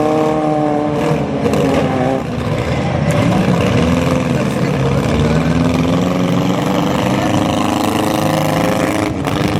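Engines of several compact demolition derby cars running and revving at once. The pitch holds high at first, drops about a second in, then rises and falls as they are revved again.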